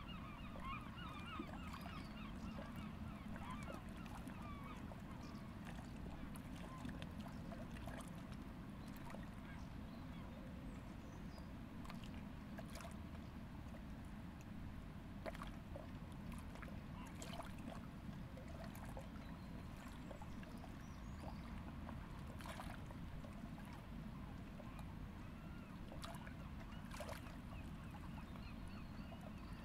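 A flock of waterbirds calling faintly in quick, chattering bursts, busiest in the first few seconds and again near the end, over a steady low rumble of outdoor ambience.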